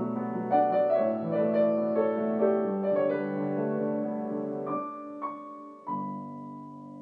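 Slow, gentle piano music: struck chords and single notes ringing on, growing softer in the second half and ending on a held chord that fades.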